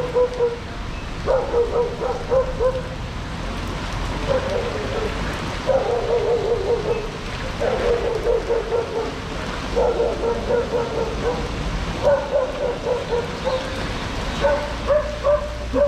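A dog barking in quick runs of several barks, one run every couple of seconds.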